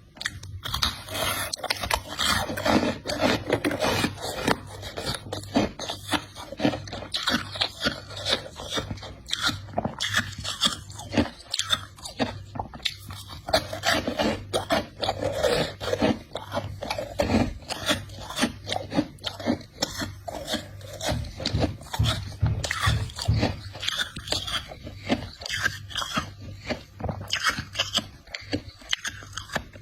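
Ice being bitten and chewed close to the microphone: continuous, dense, irregular crunching and crackling as the chunk breaks up between the teeth.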